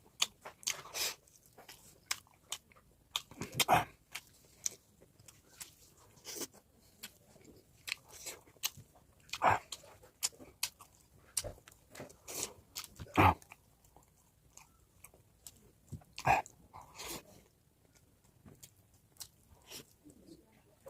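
A person chewing and biting into pork close to the microphone: irregular wet chewing and crunching, with a few louder crunches spread through.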